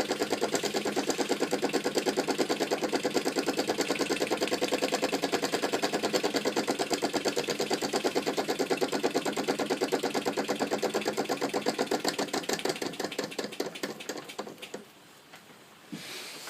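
Mamod SE1 toy steam engine running, its single oscillating cylinder chuffing in a quick, even beat. The beat dies away about fourteen seconds in, followed by a couple of faint knocks.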